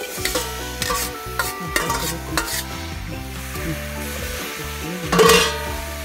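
A metal spoon stirring and scraping chillies and shallots in a metal wok over a charcoal stove, with a light sizzle. There is a louder clatter of the spoon against the wok about five seconds in.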